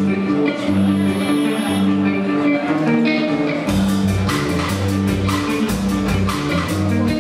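A live band plays instrumentally, with electric guitar and bass guitar carrying a riff. About halfway through the drum kit comes in, with steady cymbal strikes and a fuller low end.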